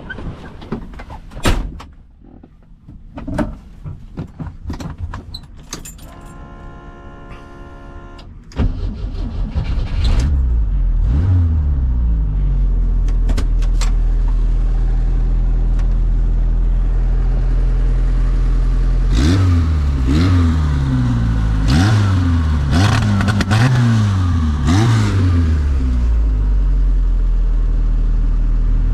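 Knocks and clicks of the car being readied, a steady whine for about two seconds, then the swapped 1.6-litre engine of a Fiat 600 starting about eight and a half seconds in and settling to a steady idle. Near the end it is revved several times in quick blips before dropping back to idle.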